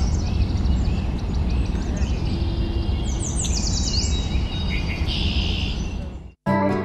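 Birds chirping and calling over a steady low rumble, with a run of quick falling chirps about three seconds in. The sound cuts off suddenly near the end and music with guitar begins.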